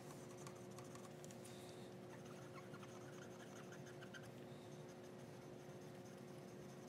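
Faint scratching of an alcohol-soaked cotton swab scrubbing solder and flux off the pads of a circuit board, over a low, steady electrical hum.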